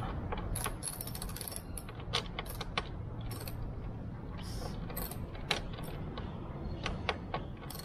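Hand ratchet socket wrench clicking in short, irregular runs while loosening a bolt.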